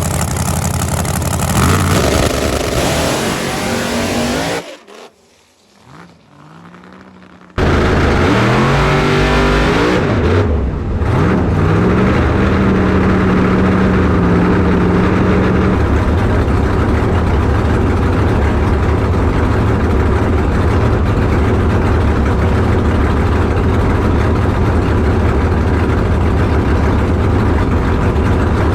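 Drag car engine running loud, briefly cut off about five seconds in. It then comes back revving up, its pitch climbing in steps before holding steady at a loud drone.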